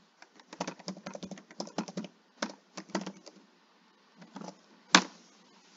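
Computer keyboard typing, a password being keyed in: a quick run of key clicks for about three seconds, a few more clicks, then one louder single click near the end.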